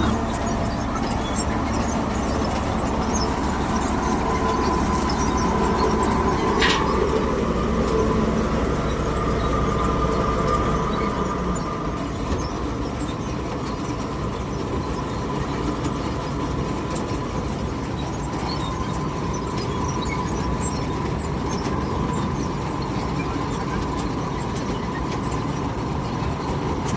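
Dasmesh 7100 combine harvester running steadily, its engine and threshing machinery making a continuous mechanical din with a faint steady whine, and one short high squeak about seven seconds in.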